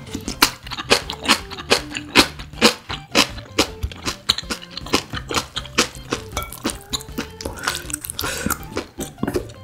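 Close-miked crunching and chewing of crunchy young radish kimchi with noodles, about two to three crisp crunches a second, over quiet background music.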